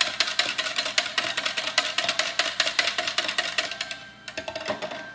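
Wire whisk stirring sugar into sorrel drink in a glass pitcher: rapid clinking of the wires against the glass, about eight clinks a second, with a ringing tone from the glass. The clinking thins out about four seconds in, and a few louder taps with ringing follow near the end.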